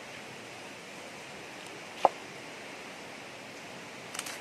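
Steady hiss of a small forest stream, with one sharp knock about halfway through and a brief rustle or splash near the end as hands work among the stones in the water.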